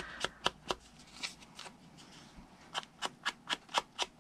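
Small sponge dabbing ink along the edges of a cardstock panel: short, light taps, a few scattered ones at first, then after a pause an even run of about four taps a second.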